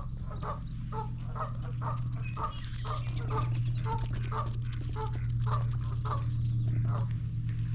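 Ducks or geese giving short clucking calls in a rapid series, about two to three a second, over a steady low hum.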